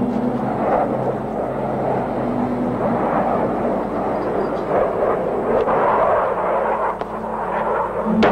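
Low, held notes of a film score shifting in pitch every second or so, over a steady rushing noise that swells and fades.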